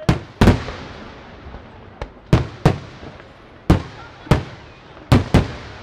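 Aerial fireworks going off: about nine sharp bangs at irregular intervals, several in quick pairs, each trailing off in an echo.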